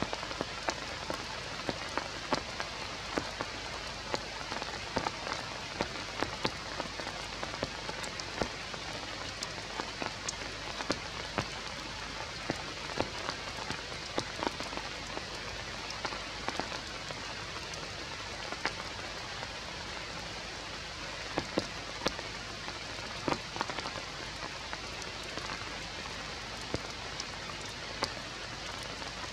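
Steady rain falling on forest leaves, with many separate drops tapping sharply close by.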